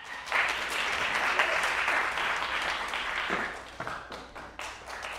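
Audience applauding, thinning out after about three seconds to a few scattered claps.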